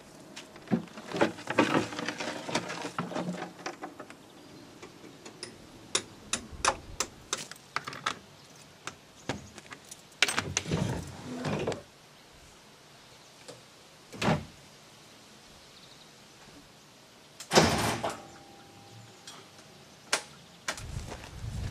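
Clicks, knocks and rattles of an old MAN ÖAF city bus's front door being worked open by hand, with a few louder bangs, then clicks of switches on the driver's dashboard.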